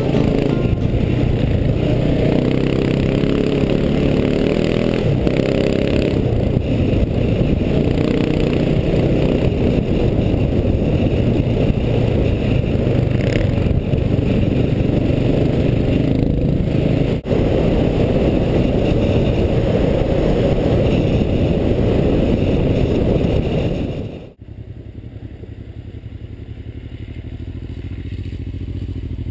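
Dual-sport motorcycle engine running under way, heard from the rider's helmet with wind noise and rattle, with a brief dip about two-thirds through. About 24 s in, the sound drops sharply to quieter idling motorcycle engines, and another motorcycle rides up and grows slightly louder near the end.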